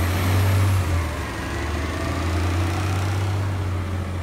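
Garbage truck's diesel engine running with a steady low rumble as the truck drives past and moves away.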